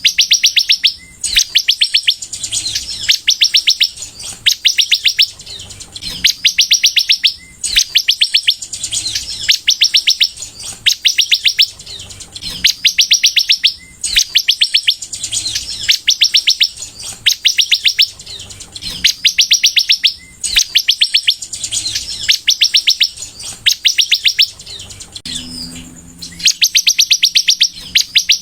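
Sunbird singing in full song: phrase after phrase of rapid, high trilled notes, each phrase about a second long, with short breaks between them.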